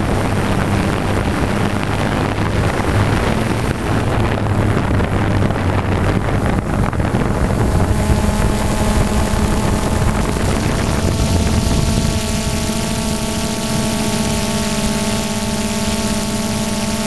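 DJI Phantom 2 quadcopter's motors and propellers humming steadily in flight, heard close up from the camera on the drone, with wind rushing over the microphone. About eleven seconds in, the wind noise eases and a cluster of higher, steady motor whines comes through.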